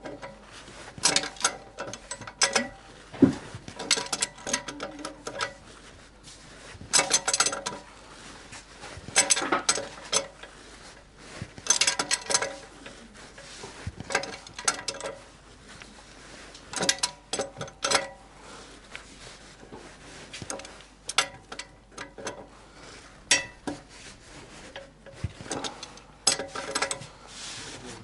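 Metal hand tools working on plumbing fittings: repeated bursts of ratcheting and clinking metal, each lasting a second or two, every two to three seconds.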